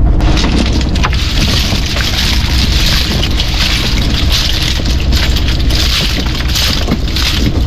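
Small fishing boat's engine rumbling under a loud, steady rushing noise that sets in abruptly and eases off near the end.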